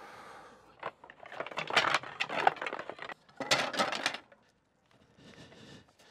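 Hard, partly metallic objects clinking and clattering as they are handled, in two bursts: one from about a second in lasting two seconds, and a shorter one just after.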